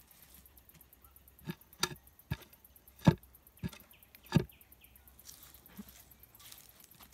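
A hand patting and packing damp soil against the edges of a wooden board, six slaps over about three seconds, the fourth the loudest.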